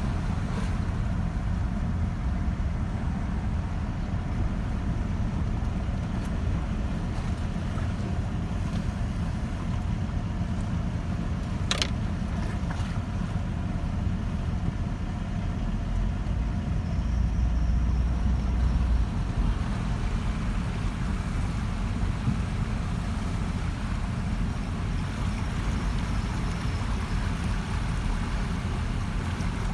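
Car driving through floodwater: a steady low rumble of engine and tyres, swelling louder for a couple of seconds around the middle, with a single sharp click about twelve seconds in.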